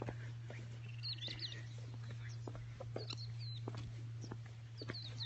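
Wild birds chirping and calling in short, quick, up-and-down whistled notes, several times over. A steady low hum and scattered small clicks sit underneath.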